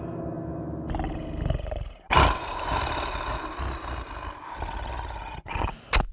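A werewolf's roar, beginning with a sharp loud onset about two seconds in and running on, with a short loud burst near the end.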